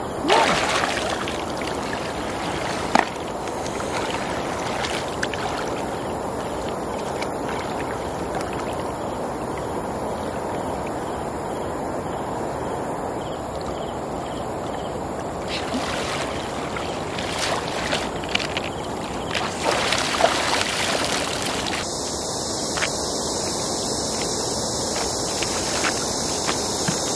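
Steady rush of a shallow river, with splashing and sloshing as a person wades and moves a plastic basket through the water: a burst of splashes just after the start and a cluster more in the second half.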